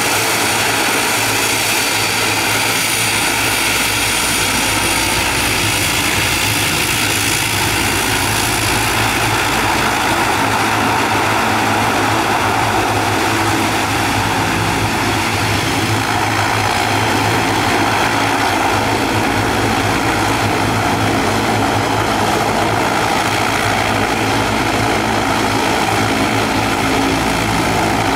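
Twin Pratt & Whitney Canada PW127 turboprop engines of an ATR 42-500 running steadily while the aircraft taxis: a constant propeller drone with several steady engine tones.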